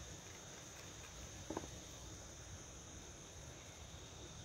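Crickets chirping steadily in the warm night air, faint under a low background rumble, with one short faint sound about a second and a half in.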